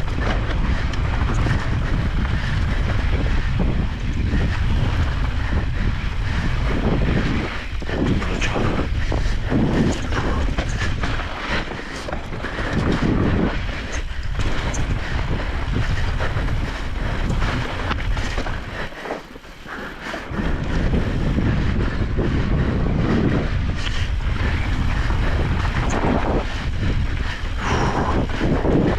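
Wind buffeting the microphone during a trail ride on an e-bike, a heavy continuous rumble mixed with tyre and trail noise. It eases off briefly about two-thirds of the way through, then comes back.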